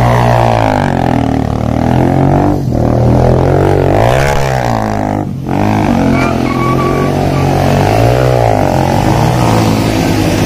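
Quad bike (ATV) engine revving up and down over and over as it spins in circles, its pitch rising and falling and dropping off briefly twice.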